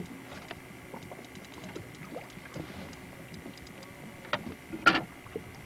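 Water slapping and light knocks against a small fishing boat's hull as a fish is reeled in, with scattered small clicks. There are two sharp knocks near the end, the louder one about five seconds in.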